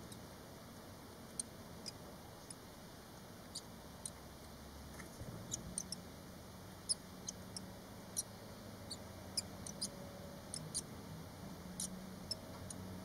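Five-day-old barn swallow nestlings giving thin, high-pitched squeaking peeps, short and irregular, coming more often in the second half.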